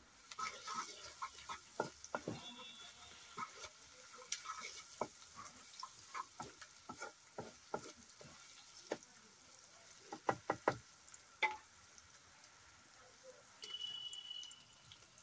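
A wooden spatula stirring sliced onions in a steel kadai, with irregular knocks and scrapes against the pan over a faint sizzle of frying oil. A quick run of sharper knocks comes about ten seconds in.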